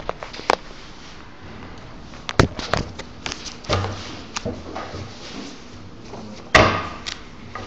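Camera handling noise: irregular knocks and rubbing as the camera is moved about and its lens covered, with louder thumps about two and a half and six and a half seconds in.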